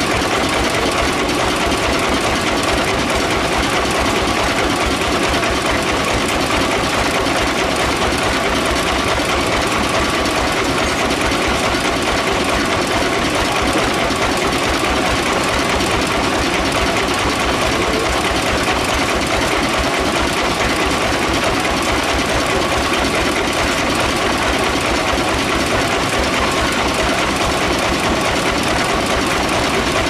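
Band sawmill machinery running steadily with no log in the cut: an even, fast mechanical clatter with a steady hum that does not change.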